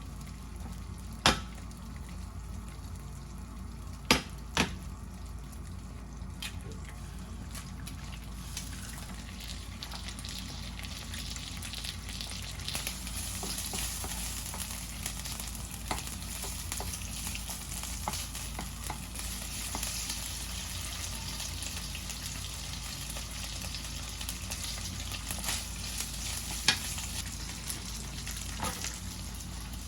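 Food sizzling in a frying pan, the sizzle growing brighter about halfway through, with a few sharp clicks of a utensil against the pan: one a second in, two around four seconds in, and one near the end.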